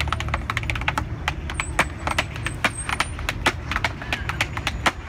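Tap shoes striking a small wooden board in quick, irregular runs of sharp taps.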